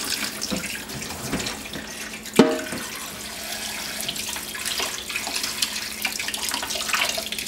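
Kitchen faucet running into a stainless steel sink as rhubarb stalks are rinsed under the stream, with one sharp knock about two and a half seconds in.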